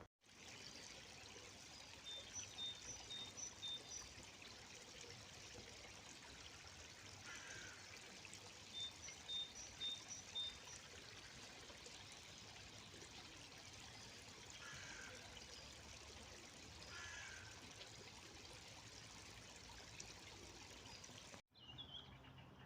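River water flowing in a faint, steady rush. A small bird twice gives a quick run of four or five high pips, and a few brief chirps come over the water. The flowing sound cuts off abruptly near the end.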